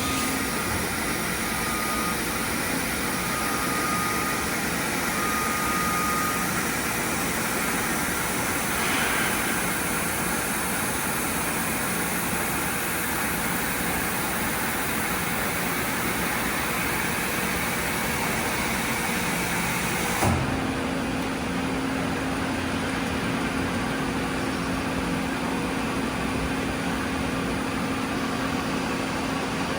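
SNK Nissin BP130 horizontal boring and milling machine running with a steady mechanical hum and hiss. A broken-up tone sounds during the first few seconds, and about twenty seconds in there is a click where the sound changes abruptly.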